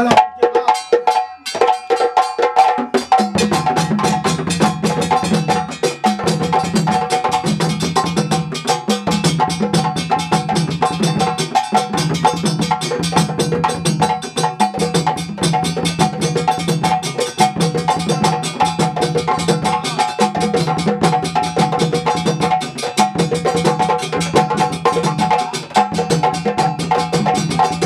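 Several djembes played together by hand in a fast, dense ensemble rhythm, with deep bass strokes joining in a few seconds in.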